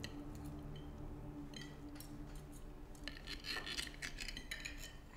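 Knives and forks scraping and clicking against china plates as diners cut their food, busiest in the second half. A held low musical tone fades out over the first few seconds.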